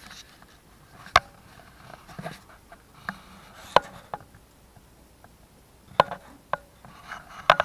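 Sharp clicks and knocks of small tools and parts being handled on a hard workbench: four loud ones spaced about one to two seconds apart, with lighter taps in between.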